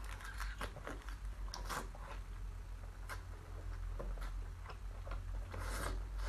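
Close-up mouth sounds of eating kuruma prawns: irregular crunchy bites, wet smacks and sucking clicks, with a longer wet noise about five and a half seconds in.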